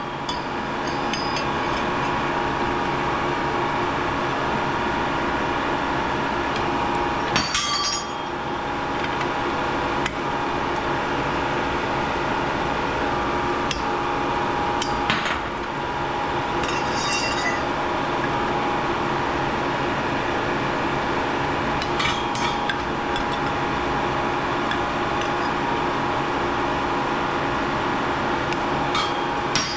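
Metal hand tools knocking and clinking on metal and glass parts of scrapped lighting equipment, a handful of separate sharp knocks, over a steady hum.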